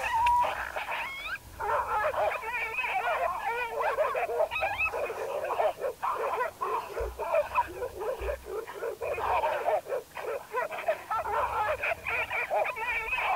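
Rapid, wavering coyote-pup yips and whimpers, one after another, the pup distress sound used to call coyotes in.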